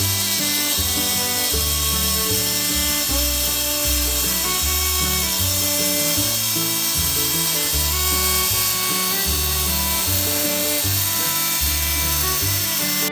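Background music with a steady bass line, over the running whine of a table saw cutting a strip of aluminum with a carbide blade.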